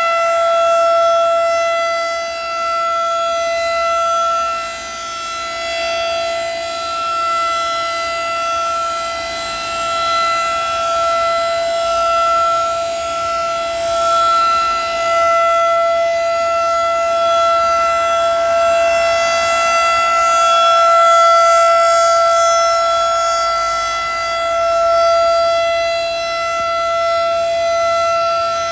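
Federal Signal 2001 DC rotating electromechanical warning siren sounding a steady single tone at full speed, its loudness swelling and fading every few seconds as the rotating horn sweeps past.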